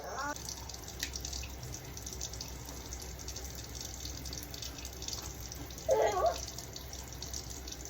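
Water running steadily from a tap, with one short vocal sound about six seconds in.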